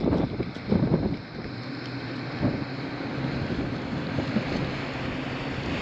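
Wind buffeting the microphone, with a low, steady engine hum under it.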